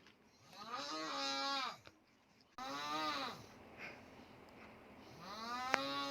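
A woman with a sore throat making long, drawn-out vocal noises, three of them, each rising and then falling in pitch. A sharp click sounds during the last one.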